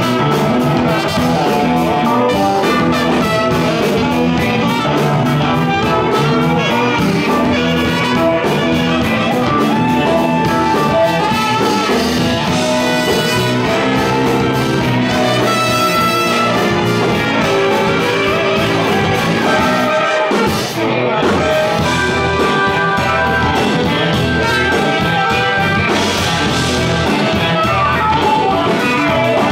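Live band playing, with saxophone and trumpet playing the melody together over drums and keyboard.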